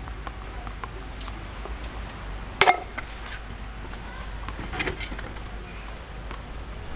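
Tennis ball struck hard by a racket about two and a half seconds in, a sharp pop, answered by a fainter strike about two seconds later as the ball is hit back.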